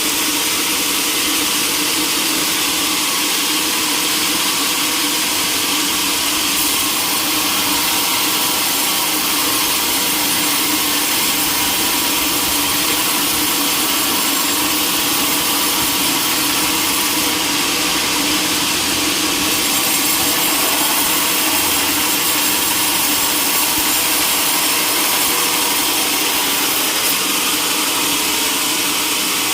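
Sawmill saw running steadily through timber, an even, continuous, hissing machine noise without a break.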